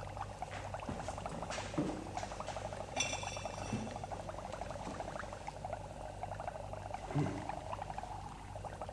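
Liquid bubbling and fizzing in laboratory glassware, a steady fine crackle, with a few faint knocks and a brief high ringing sound about three seconds in.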